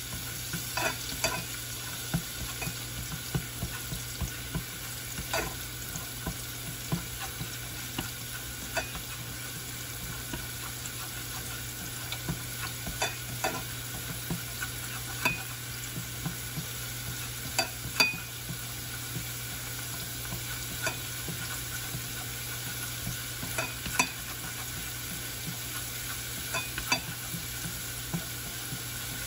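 Minced small onions frying in annatto oil in a small enamel saucepan: a steady sizzle, with irregular light taps and scrapes as wooden chopsticks stir them against the pan.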